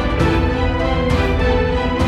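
Background music with sustained chords.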